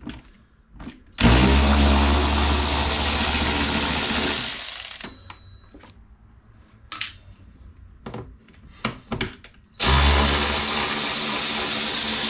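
Rechargeable cordless screwdriver with a T15 Torx bit backing screws out. There are two runs of steady motor whir of about three seconds each, the first about a second in and the second near the end, with a few small clicks between them.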